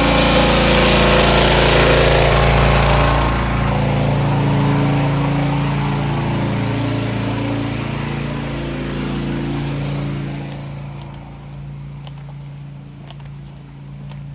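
Hydro-jetter's engine running steadily, with a loud rushing hiss over it that drops away about three and a half seconds in. The engine grows fainter near the end.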